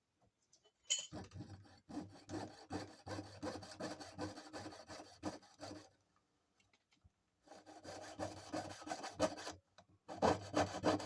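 Jeweler's saw with a fine 2/0 blade cutting sterling silver ring stock in quick back-and-forth strokes. It starts about a second in, pauses briefly around the middle, and pauses again just before the end before carrying on.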